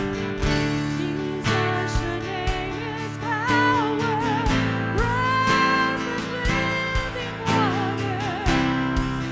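Live worship music: strummed guitar chords over a steady beat, with a sung melody holding long, wavering notes from about three seconds in.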